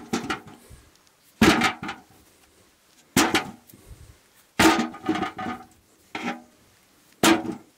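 Potatoes dropped by hand into a galvanized metal bucket, each landing with a clank and brief ringing of the metal; five drops, about a second or two apart.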